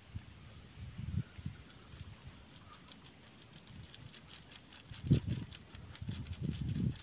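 Fingers picking and scraping at clustered hard shell-like growths on skin, making a run of small crisp clicks and crackles, with dull low knocks at about a second in and again from about five seconds.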